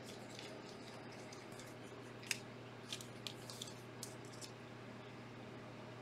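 Faint handling of trading cards and plastic card holders: a few short clicks and taps, about six of them between two and four and a half seconds in, over a steady low hum.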